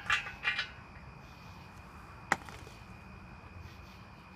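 Engine-crane boom and hydraulic bottle jack being fitted together by hand: a little clattering at the start, then a single sharp knock about two seconds in.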